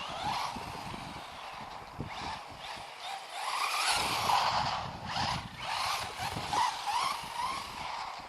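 FTX Vantage RC car running fast along the road, its motor whine rising and falling in pitch as it speeds up, slows and passes, over tyre noise.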